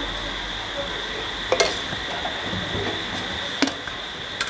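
Steel utensils clinking lightly twice, a ladle against a steel kadhai, about a second and a half and three and a half seconds in, over a steady background hiss.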